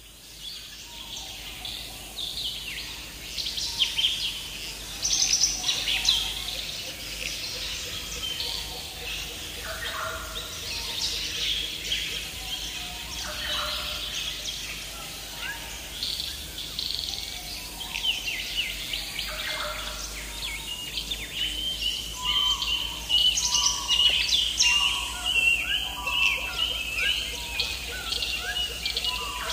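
Several songbirds singing and chirping together, with a fast run of repeated high notes in the second half.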